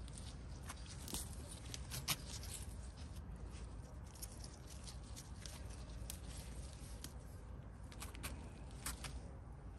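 Chilli pods being snapped off the plant's stems by a gloved hand, with leaves rustling: a scatter of small sharp snaps and rustles, the loudest about two seconds in.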